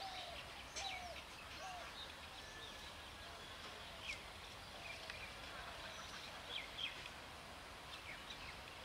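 Small birds chirping and calling in short, scattered notes over a faint steady outdoor background.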